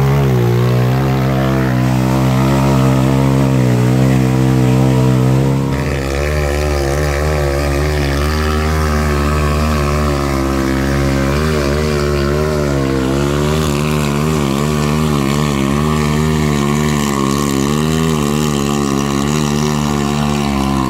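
Off-road go-kart engine running under load up a dirt hill, its pitch wavering up and down with the throttle. The engine note shifts abruptly about six seconds in.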